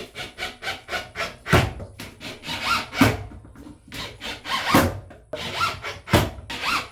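Hand sawing: a run of uneven back-and-forth saw strokes, the strongest about every second and a half with lighter strokes between, some with a short rising squeal.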